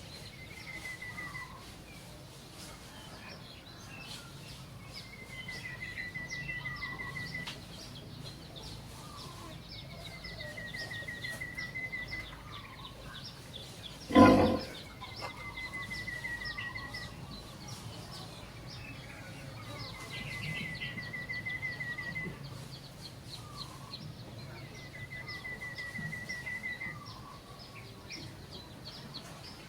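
An animal's trilling call, each about two seconds long, repeating roughly every five seconds over a background of short chirps. About halfway through there is one loud sharp knock.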